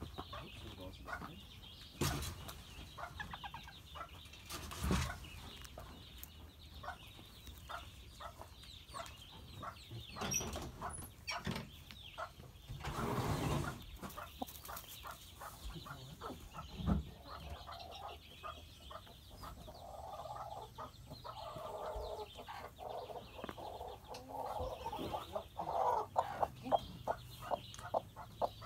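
Hens clucking, denser from about two-thirds of the way in, with scattered taps, a few sharp knocks and a rustling scrape from inside the wooden coop.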